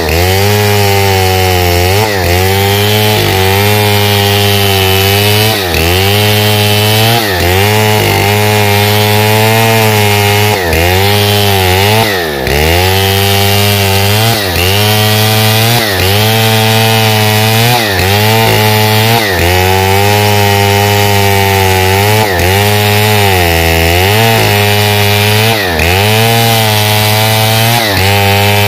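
Stihl 070 chainsaw's large two-stroke engine running at high speed while ripping lengthwise along a pine log. Its pitch sags briefly every second or two as the chain loads up in the cut, then climbs back.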